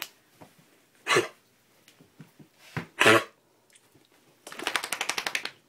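Dog coughing: two harsh coughs about two seconds apart, then a rapid rasping rattle for about a second. It is part of a cough that keeps coming back.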